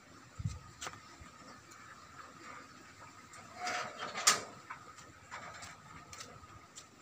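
Faint footsteps on a paved driveway: light ticks about twice a second, with a louder scrape and a sharp knock about four seconds in. A faint steady high tone sits under them.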